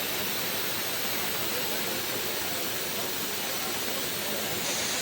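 Steady, even rushing noise of machining work on a ship's fan, with no distinct knocks or rhythm.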